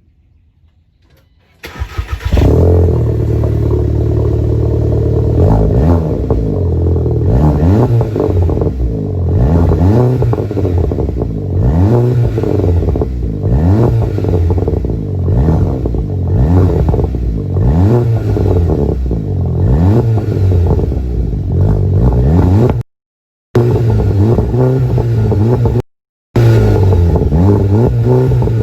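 A 2016 VW Golf GTI's turbocharged four-cylinder engine, breathing through a Magnaflow cat-back exhaust with the muffler deleted, starts up about two seconds in. It is then revved over and over in short blips, the revs climbing and falling about every second and a half, with crackles and burbles from the straight-through exhaust. The sound cuts out briefly twice near the end.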